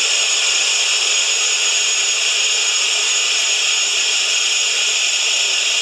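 Vortex-tube enclosure cooler, a 25 SCFM NEMA 4 unit, running on compressed air at 90 PSI: a steady, loud, high-pitched hiss of rushing air with faint steady whistle tones in it. It measures 87 to 88 dBA at one foot.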